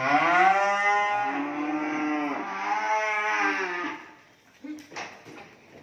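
Young beef cattle mooing: two long moos run together, about four seconds in all, followed by a couple of light knocks near the end.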